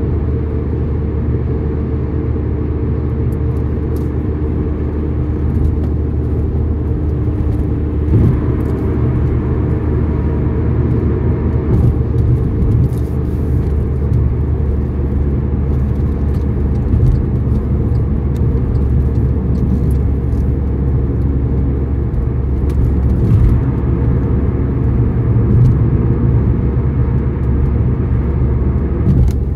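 A car being driven: a steady low engine and road rumble.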